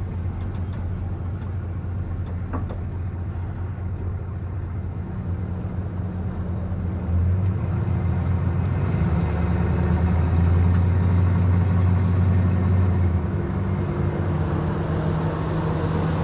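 Chevrolet Silverado pickup's engine running as the truck drives across soft sand, a steady drone that grows louder about seven seconds in.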